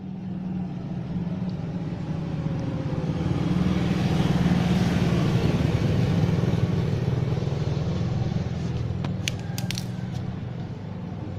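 Honda Supra 125's single-cylinder four-stroke engine running steadily, growing a little louder through the middle and easing off toward the end; a few light clicks near the end.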